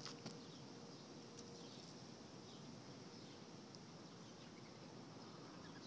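Near silence: faint outdoor ambience with a few faint, short bird chirps scattered through it.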